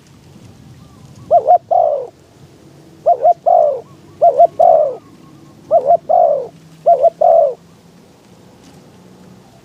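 Spotted dove cooing: five phrases, each two short quick coos followed by a longer, falling coo, repeated about every second and a half.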